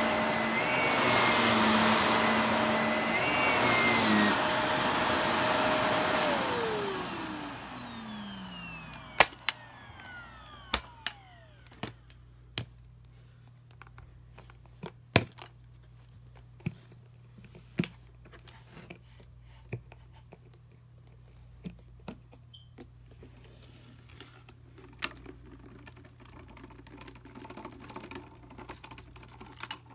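Bagless upright vacuum cleaner running, then switched off, its motor winding down with a falling whine over about three seconds. Scattered sharp clicks and taps follow, and near the end there is a soft rustle as dirt is tipped out of the clear dust cup.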